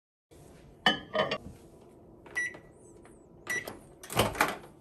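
Samsung microwave being loaded and started: a plate clinks down inside at about one second, the keypad gives two short beeps a little over a second apart, and a louder knock comes near the end.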